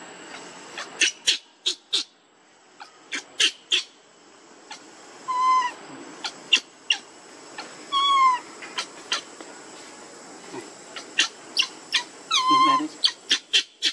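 Baby macaque crying: a run of short, sharp squeaks broken by three longer calls that drop in pitch.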